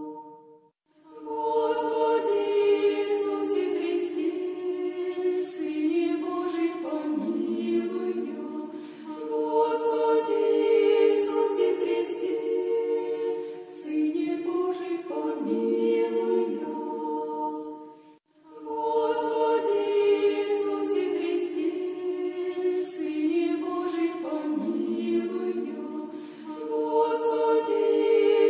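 A cappella choir singing an Orthodox church prayer chant in long, sustained phrases. The singing breaks off briefly about a second in and again about 18 seconds in, and the same melody starts over after the second break.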